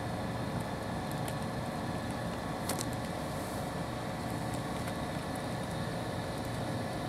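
Steady mechanical drone with a constant hum, of an engine or machinery kind, with a couple of sharp clicks, the clearest nearly three seconds in.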